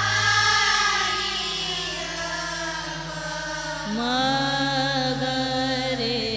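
A woman singing long, held melodic phrases in Hindustani classical style over a steady drone accompaniment; a second phrase begins about four seconds in with an upward glide.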